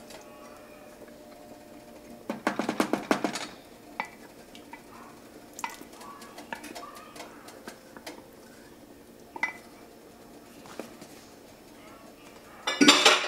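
Kitchen clatter of a wooden spoon and a measuring cup knocking and scraping against a heavy cooking pot. There is a quick run of knocks about two seconds in, scattered single clicks after it, and another loud run of knocks near the end.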